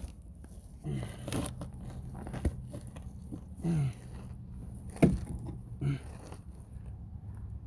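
Scattered knocks, clicks and scrapes of hands-on tire-change work: tools and wheel parts being handled, with a couple of short creaks.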